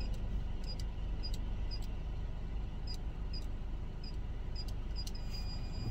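Steady low road and engine rumble inside a moving car's cabin, with a light, regular ticking about three times a second.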